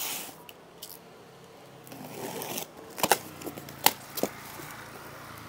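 Cardboard cartons being handled: a brief soft scrape, then a few sharp knocks.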